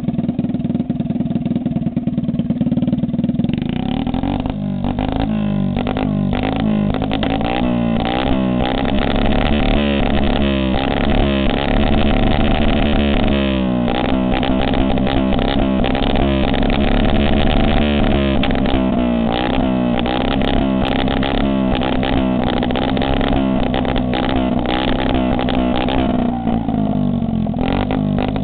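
A motor engine running, its pitch wavering up and down repeatedly for most of the time and steadier near the start and end.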